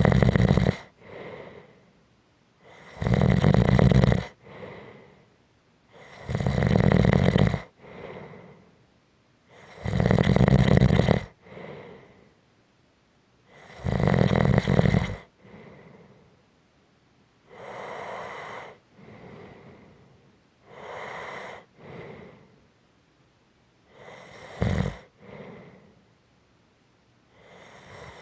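A person snoring in a steady rhythm, one loud snore on each breath in about every three and a half seconds, each followed by a short, softer breath out. The snores become noticeably quieter about two-thirds of the way through, with one brief sharp snort among them.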